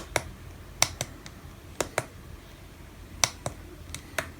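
Small buttons on a radio controller clicking as they are pressed and released, in about four quick press-and-release pairs and a single click near the end, stepping through menus to switch vehicle.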